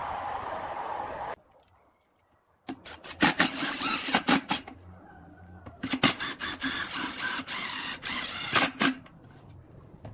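Makita 18V cordless driver running in two bursts of about two to three seconds each, driving screws through a wooden slat into a steel chair frame, with sharp clicks as each screw is driven.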